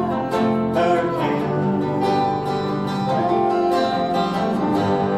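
Live acoustic folk music: an instrumental passage of plucked and strummed strings between sung lines of the song.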